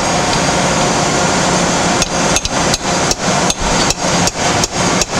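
A hammer tapping a tapered dowel pin down into an OD grinder tailstock casting to seat it: a steady run of taps about three a second, starting about two seconds in, over a steady background noise.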